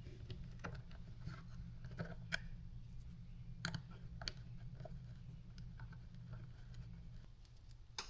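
Scattered light clicks and taps of small plastic tuner parts and wiring being handled and fitted together, over a steady low hum.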